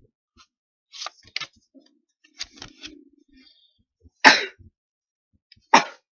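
Paper booklet pages handled and rubbed right against the microphone: soft clicks and rustles, then two short, loud scuffs, about a second and a half apart, near the end.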